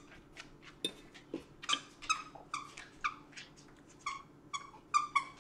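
A dog chewing a squeaky toy, setting off a rapid, irregular string of short squeaks, the loudest ones near the end.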